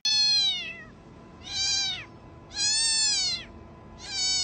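A cat meowing four times in a row, each meow rising a little and falling away at the end, with short gaps between them.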